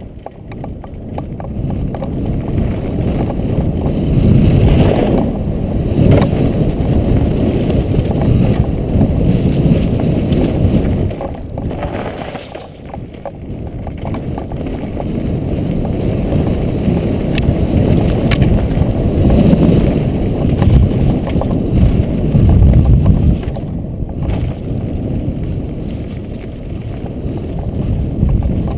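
Mountain bike descending a dirt trail at speed, its tyres rushing over the ground with wind buffeting the action camera's microphone; the rush swells and eases as the speed changes, with a couple of sharp clicks about two-thirds of the way through.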